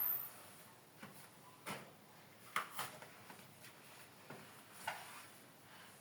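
A handful of light, separate knocks and clatters of dishware being handled, about six short taps spread over a few seconds.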